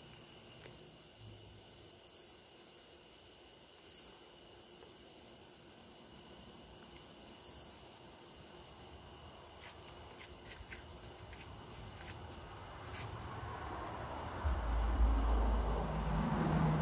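Crickets chirping in the night: a steady high trill with a pulsing chirp just below it. About fourteen seconds in, a low rumble comes up and grows louder toward the end.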